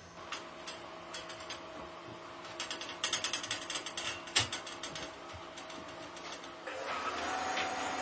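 Old band-saw blade sharpening machine running: a steady hum with repeated ratcheting clicks from its tooth feed, thickest in the middle with one sharp clack. About seven seconds in, a louder steady whine with hiss sets in as the grinding wheel works the saw teeth.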